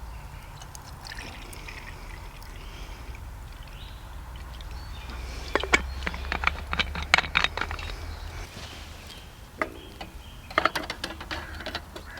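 Camp cooking gear being handled: short clusters of clinks and knocks about halfway through and again near the end, over a steady low rumble.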